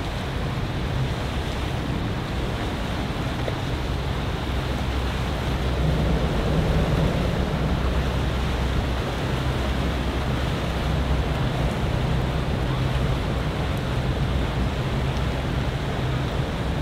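Twin Mercury 300 hp outboards on a Concept 30 center-console boat running as it cruises by, a steady low drone, with wind and water wash over it.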